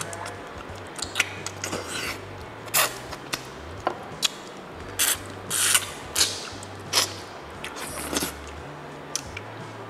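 Close-up eating sounds of someone sucking and chewing meat off the bones of a curried snapper head, with sharp wet smacks and slurps at irregular intervals.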